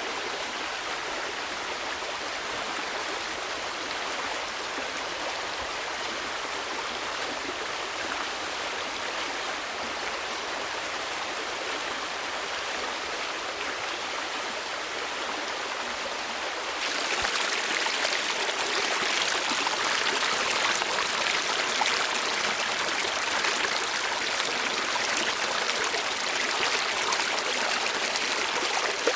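Steady rush of flowing stream water. A little past halfway it turns suddenly louder and brighter, then holds steady again.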